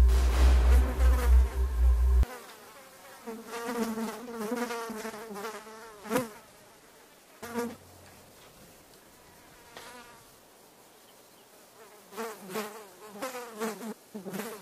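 A loud low hum with steady tones cuts off suddenly about two seconds in. After that, an insect buzzes on and off in short bursts of wavering pitch.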